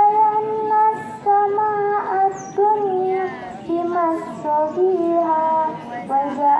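A young female voice recites the Quran in melodic tilawah style. It sings long held notes that waver and glide between pitches, with short breaks for breath.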